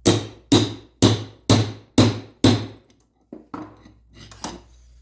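Six hard hammer blows, about two a second, driving the screwdriver's shaft and wooden handle together, followed by a few lighter taps and knocks.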